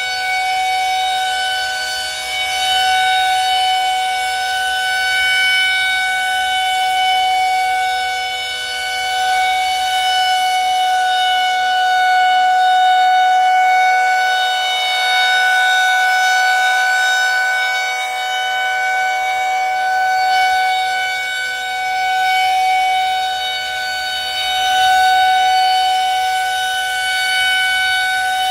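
Federal Signal 2001 rotating outdoor warning siren sounding a steady single tone at full speed during a siren test. Its loudness swells and fades every few seconds as the rotating horn sweeps past.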